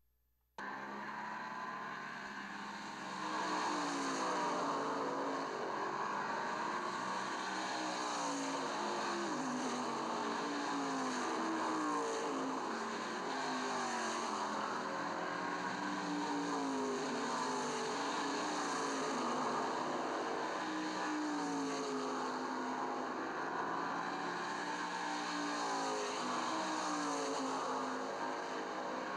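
Racing car engines revving, their pitch rising and falling over and over, on a soundtrack dubbed onto the film. It cuts in abruptly just after the start and grows louder about three seconds in.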